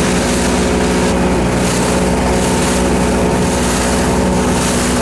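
Motorboat engine running steadily at constant speed, its hum under a continuous rush of water and wind.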